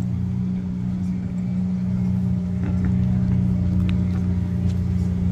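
An engine running steadily at idle, a constant low hum with no revving.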